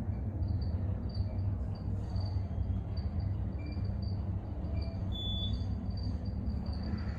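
Steady low hum and rumble of a Montgomery KONE hydraulic elevator cab travelling down, with faint, brief high chirps repeating on top.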